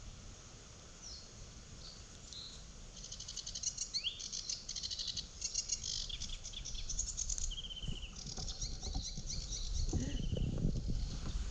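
Songbirds singing: rapid high trills and short chirps and rising whistles, several overlapping. Water sloshes low near the end.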